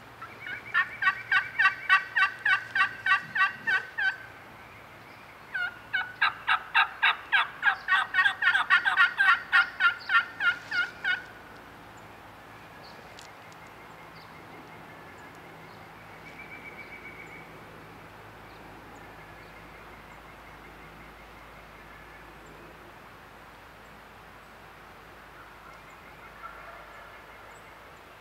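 Wild turkey yelping: two long runs of loud, evenly spaced calls at about four notes a second, the first lasting about three and a half seconds and the second about five and a half. Fainter scattered calls follow.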